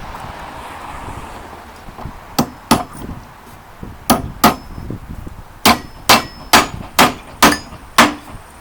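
Hammer blows driving a steel wedge bolt into a Hog Head rod clamp on a form rod: about ten ringing metal clangs, a few spaced apart at first, then a steady run of louder blows about two a second in the second half. The blows draw the rod clamp tight against the waler and straighten the rod.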